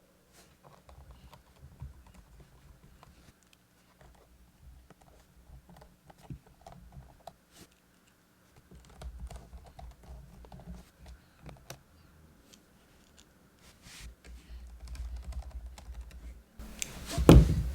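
Small scattered clicks and ticks of a screwdriver driving the small bottom-case screws back into a MacBook Pro, over low handling rumble, with a louder bump near the end.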